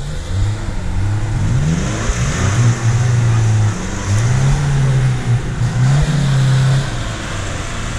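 Off-road 4x4 engine revving hard under load in two long surges, its pitch climbing and holding and then dropping back between them, while the vehicle strains against a tow strap in mud.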